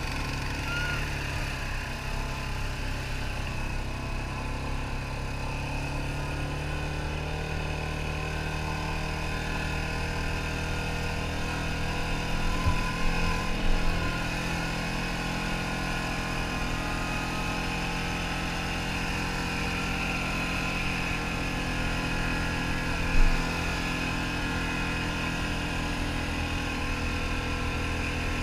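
ATV engine running steadily while the quad rides a dirt trail, with a short louder clatter a little before halfway and a single thump about two-thirds in.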